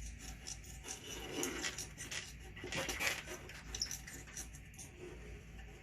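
Hands handling small screws and parts at a workbench: scattered light clicks and rubbing, with a few sharper clicks around the middle.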